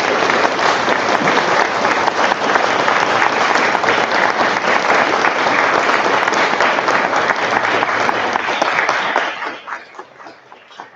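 A large audience applauding, loud and dense, dying away about nine seconds in to a few scattered claps.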